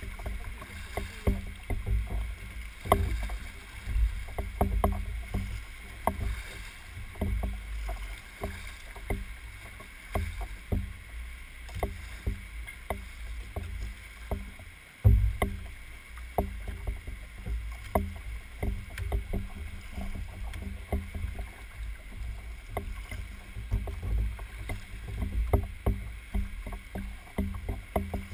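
Choppy sea water slapping and splashing against a fishing kayak's hull and outrigger floats, with a low rumble and frequent irregular small knocks, and one louder thump about halfway through.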